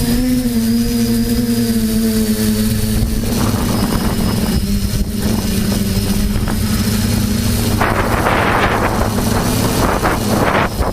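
TBS Discovery quadcopter's brushless motors and propellers whining at a near-steady pitch, with rushes of wind noise about three seconds in and again from about eight seconds.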